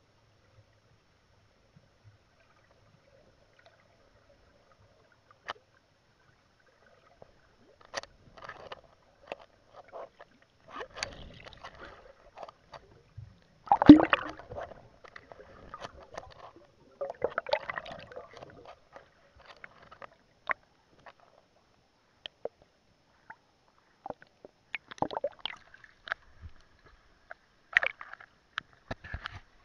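Muffled knocks, clicks and water sloshing picked up by a camera underwater as it is jostled and moved, with one loud thump about fourteen seconds in. The first several seconds are nearly silent.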